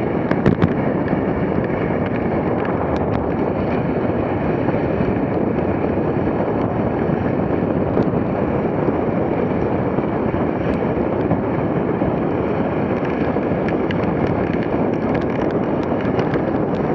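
Steady rushing of wind on the microphone and sled runners sliding over packed snow, as a dog sled is pulled by a four-dog team at about 34 km/h.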